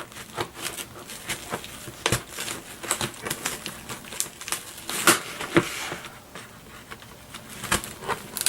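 Scissors cutting through a cardboard box: irregular snips, crunches and crinkles of cardboard and packing tape, with a stronger crunch about five seconds in.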